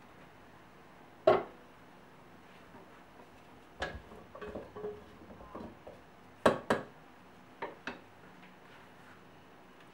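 Wooden spoon and cutting board knocking and scraping against a white enamel pot while chopped vegetables are stirred in it. There is one sharp knock about a second in, a run of softer scrapes and knocks, then two quick pairs of clacks near the end as the spoon is tapped and laid down on the wooden board.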